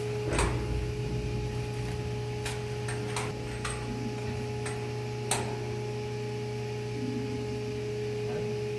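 Steady machinery hum of an engine room, with several short, sharp metallic clicks and taps scattered through it as a hand tool knocks against fittings inside the engine's chain case. The loudest is a knock with a dull thump about half a second in.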